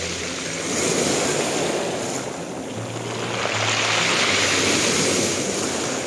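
Black Sea surf washing in over a pebble beach: small waves breaking into foam with a steady hiss that surges twice, about a second in and again about four seconds in.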